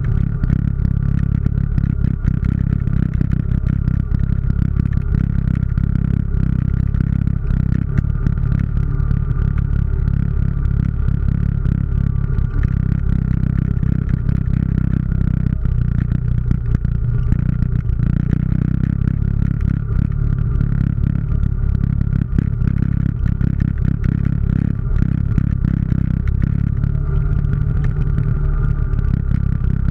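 ATV engine running steadily as the machine travels along a rough dirt trail, with a steady high whine over the low engine drone and frequent small rattles and knocks from the machine jolting over the ground.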